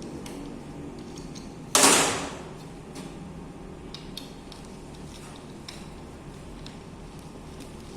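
Metal parts being handled by hand: small clicks and taps, with one loud metallic clank a little under two seconds in that rings briefly.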